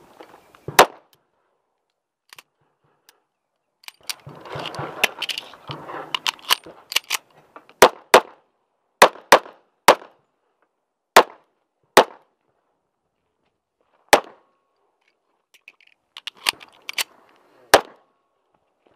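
Rock Island Armory 1911 pistol firing a course of fire: about twenty sharp shots, mostly in quick pairs, with pauses between strings where the shooter moves.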